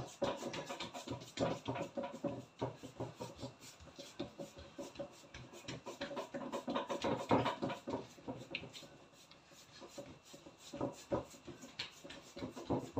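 Hands working semolina makrout dough, with irregular rubbing, scraping and light tapping.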